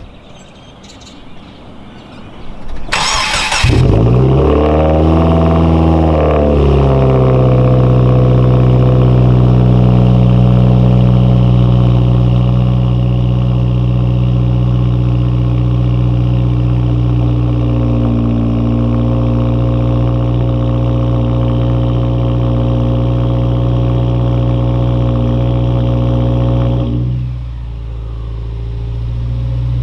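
Cold start of a 2015 Subaru WRX's turbocharged 2.0-litre flat-four through a Nameless muffler delete: a brief crank of the starter about three seconds in, then the engine catches and its revs flare up and fall back before it settles into a steady fast idle. Near the end the sound gets noticeably quieter.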